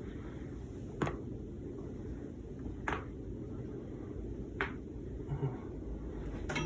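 A person's joints being cracked: four single sharp pops, each about two seconds after the last.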